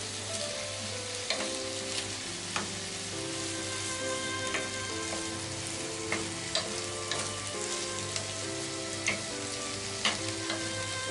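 Cabbage and onion sizzling steadily as they are stir-fried in a frying pan. A wooden spatula knocks against the pan now and then, about nine times.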